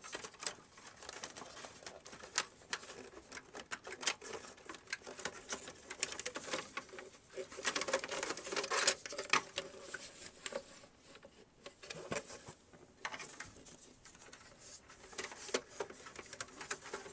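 Irregular clicks, taps and light rattles of the DVD recorder's metal and plastic parts being handled as the hard drive and cover are fitted back in place.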